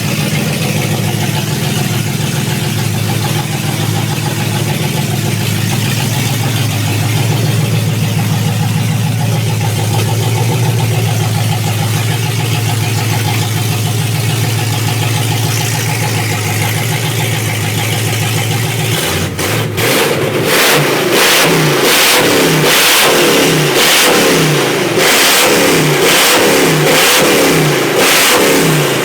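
Range Rover Classic's 3.9-litre V8 running with no exhaust fitted, very loud. It idles steadily, then about two-thirds of the way through it is revved in repeated short blips, about one a second.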